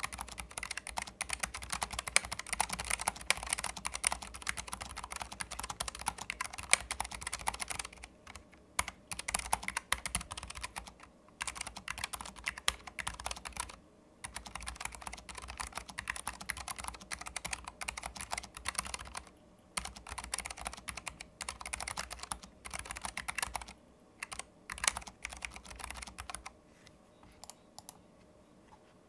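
Typing on a Keychron low-profile keyboard fitted with Keychron low-profile optical switches, in a switch sound test. Keystrokes come in quick runs broken by short pauses, and the typing stops about three seconds before the end.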